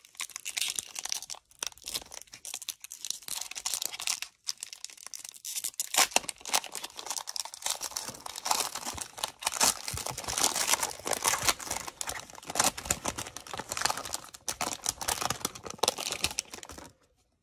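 Foil Panini Prizm trading-card pack wrappers being torn open and crumpled by hand: a long, dense run of crinkling and sharp ripping crackles. It stops abruptly just before the end.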